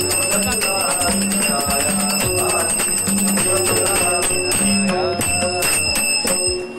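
Music with a steady beat, a repeating low note and sustained high ringing, bell-like tones.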